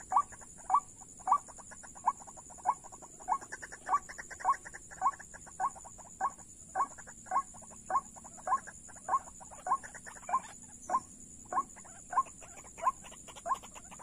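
White-breasted waterhen calls played as a trapping lure: a short, upward-sliding note repeated evenly, just under two a second.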